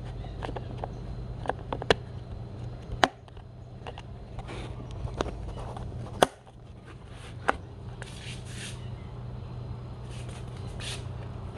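Hands and a handheld phone knocking and rubbing against a motorcycle's plastic dash trim and screen: several sharp clicks and brief scuffs over a steady low hum.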